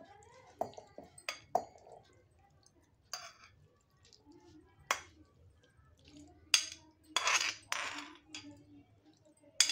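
A metal spoon clinking and scraping against a cooking pan, scooping out the cooled tomato-onion mixture to be ground. It makes a handful of light, separate clinks, then two short scrapes about seven to eight seconds in.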